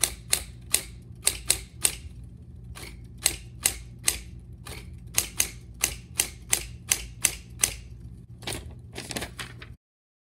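A series of sharp clicks at uneven intervals, roughly two a second, over a faint low hum, cutting off abruptly near the end.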